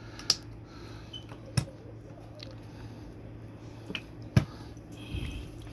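A few sharp clicks and knocks, three of them louder and spread over several seconds, from handling a dish-soap bottle while adding soap to cleaning water, over a faint steady low hum.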